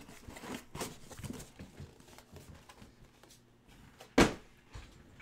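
Faint rustling and light clicks of trading-card packaging being handled at a table, then a single sharp knock about four seconds in.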